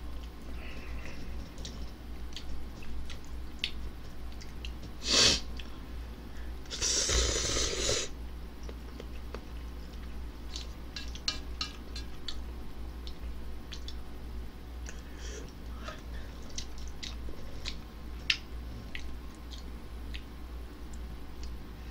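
A person eating ramen noodles: chewing and small mouth noises with scattered light clicks, and two loud slurps, a short one about five seconds in and a longer one about seven seconds in.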